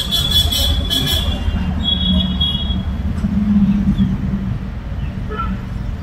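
Steady low rumble of road traffic, swelling briefly about three seconds in, with short high-pitched tones near the start and again about two seconds in.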